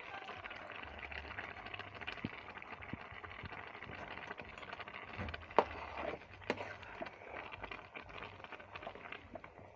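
Pot of okro soup simmering on the stove with a steady bubbling hiss, with a few sharp knocks a little past halfway as dried fish goes in and the pot is stirred.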